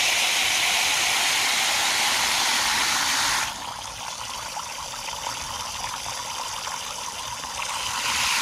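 Water from a garden hose nozzle splashing into a metal coffee can sunk into the lawn, filling it for a chinch bug flotation test. The steady spray drops noticeably in loudness about three and a half seconds in, then builds a little near the end.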